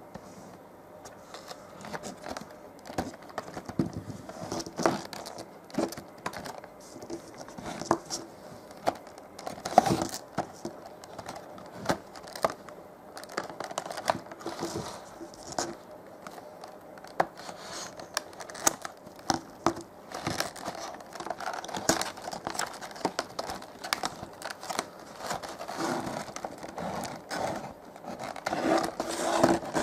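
Toy packaging being handled and opened: plastic and cardboard crinkling and tearing, with irregular small clicks and scrapes.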